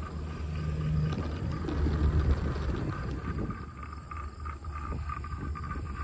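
Uneven low wind rumble buffeting the microphone on a moving chairlift, with a faint steady high whine underneath.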